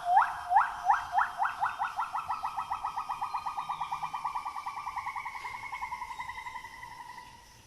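Bornean gibbon call: a run of rising whoops that speed up into a rapid trill, slowly dropping in pitch and fading away near the end.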